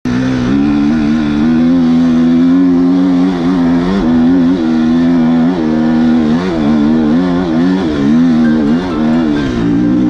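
Enduro motorcycle engine running at high revs, held fairly steady for the first few seconds, then rising and falling in pitch again and again as the throttle is worked.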